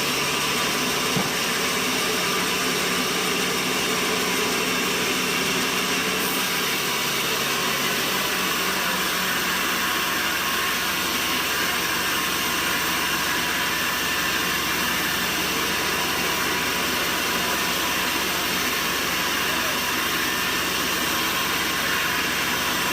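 Sawmill machinery running steadily: a loud, even mechanical din with no breaks.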